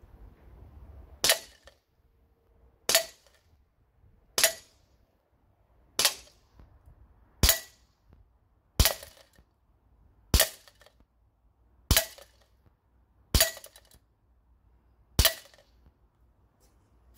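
VFC Sig Sauer M17 gas blowback airsoft pistol firing ten single shots on green gas, about one every one and a half seconds, each a sharp pop with a brief ring.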